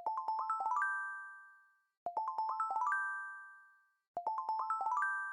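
Chime-like jingle music: a quick run of about eight bright bell-like notes rising in pitch, played three times about two seconds apart, each left to ring out and fade.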